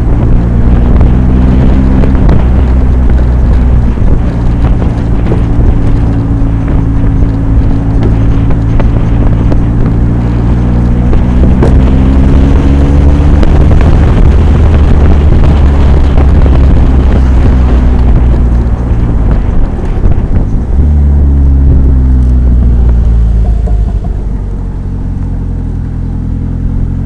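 Rewaco GTR turbo trike's engine running under way, its pitch climbing and dropping back several times as it pulls through the gears, with wind noise on the microphone. It eases off and gets somewhat quieter near the end.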